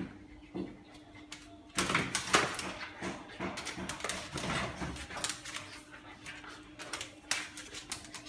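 Husky puppy whimpering and giving short yips as it plays, mixed with quick clicks and scuffling knocks; the loudest stretch comes about two seconds in.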